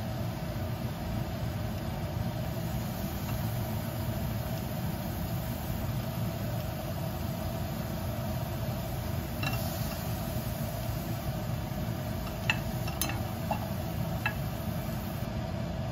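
Steady hum of a kitchen range-hood fan over a gas stove, with a few light clicks of metal tongs and a wooden spoon against a pot in the second half.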